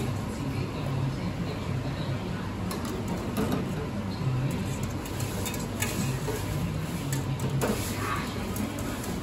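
Eatery background noise: a low steady murmur with scattered clinks, typical of bowls and utensils.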